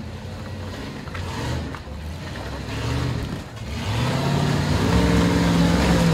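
Toyota 80 Series LandCruiser winch truck's engine revving: the revs climb about three seconds in and again at four, then hold high and loudest near the end.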